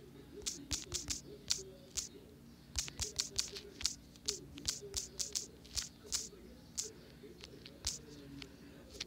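Typing on a smartphone's touchscreen keyboard: a quick, irregular run of sharp taps and clicks, several a second, that thins out near the end.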